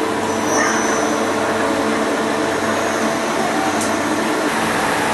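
Steady hum and hiss of machine-shop machinery running, with a thin high whine for most of the first four seconds and a single sharp click just before the four-second mark.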